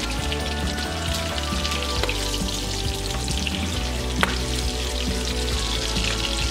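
Bacon strips sizzling and crackling in a frying pan as they brown and render their fat. A plastic spatula scrapes and taps the pan as the strips are turned, with one sharp click about four seconds in.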